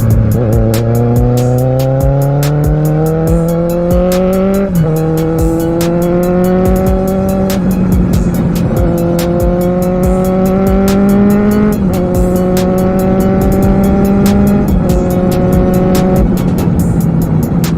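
Kawasaki Z750R's inline-four engine accelerating up through the gears: the pitch climbs steadily, then drops sharply at each upshift, five times.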